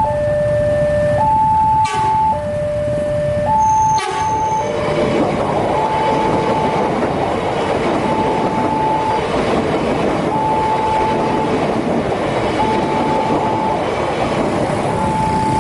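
Railway level crossing warning alarm sounding a two-tone signal that alternates between a low and a high tone, each held about a second. From about four and a half seconds in, a fast train passes with a dense rumble and wheel noise that largely covers the alarm. There are two sharp clicks near two and four seconds.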